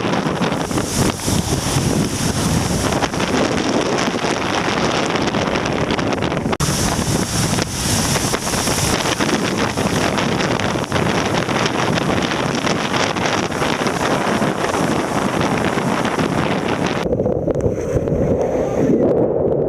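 Strong wind buffeting the microphone over rushing water while kiteboarding in typhoon winds. Near the end the hiss drops away, leaving a muffled lower rush.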